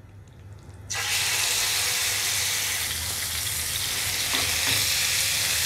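Marinated chicken tikka pieces landing in hot oil in a nonstick pan: a loud sizzle starts suddenly about a second in and keeps going steadily as the pieces are stirred with a spoon.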